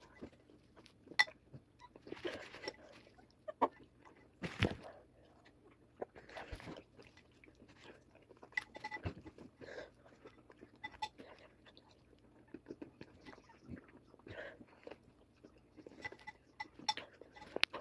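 Crunchy cereal being chewed close to the microphone, in irregular crackly mouthfuls. Now and then a plastic spoon clicks against the ceramic bowl.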